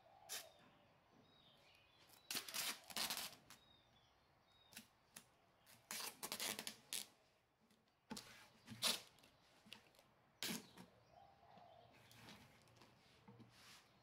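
Clear plastic film crinkling and rustling in several short bursts as it is handled and smoothed by hand over a woven cane grille panel.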